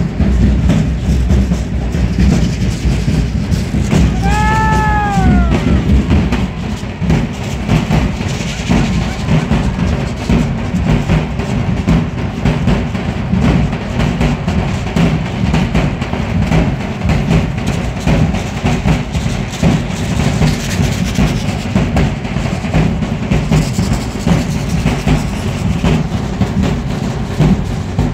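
Large bass drums beating a fast, steady rhythm for the dancers, with dense clicking over it. About four seconds in, a brief high call rises and falls above the drumming.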